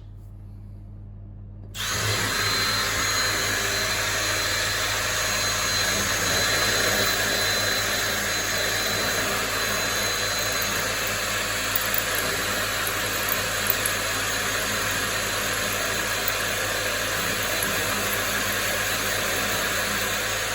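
Power drill with a 6 mm diamond-tipped bit grinding into polished porcelain tile, starting about two seconds in and then running steadily, with a thin high whine over the grinding.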